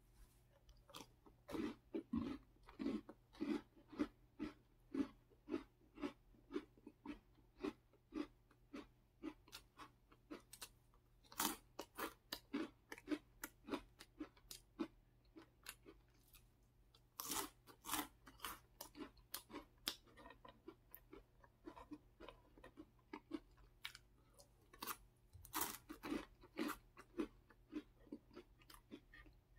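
Crunchy chewing of snacks: an Oreo cookie bitten and chewed, then a Cheetos stick, at about two crunches a second, with a few louder bites along the way.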